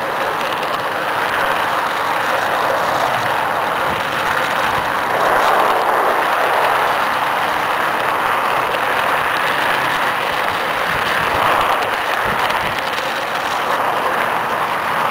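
Wheels of a large-scale garden-railway train rolling along the rails, heard from a camera riding on the train: a steady rolling rumble and hiss that swells a little about five seconds in.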